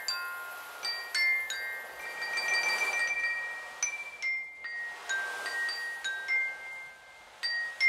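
A shokkin, a tuned set of ceramic rice bowls and teacups, struck with sticks, playing a tune of clear ringing high notes one after another at changing pitches. A soft hiss swells and fades about two to three seconds in.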